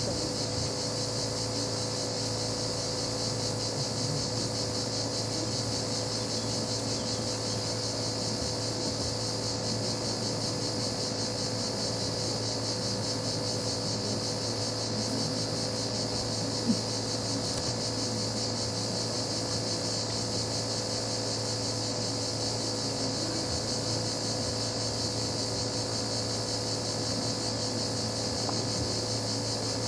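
Steady background noise with no speech: a constant high hiss and a low steady hum, broken only by one short click about 17 seconds in.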